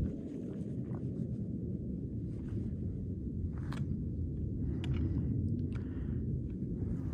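Wind on the microphone: a steady low rumble, with a few faint clicks and scuffs now and then.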